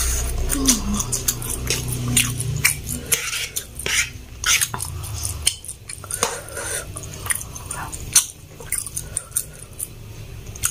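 Close-up chewing and slurping of instant noodles, with many short wet mouth clicks and a few clinks of a metal fork against the plate.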